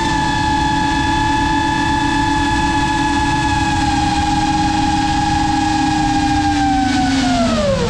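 Brushless motors of a 5-inch FPV quadcopter whining at a steady high pitch over a rush of wind, as heard from the GoPro on the drone. Near the end the whine slides steeply down in pitch as the motors spin down.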